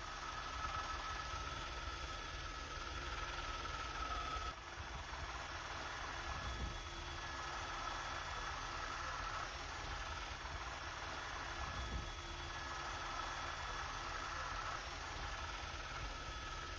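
Steady engine and rotor drone heard from inside a helicopter cabin, with faint steady whining tones above it. The level dips briefly about four and a half seconds in.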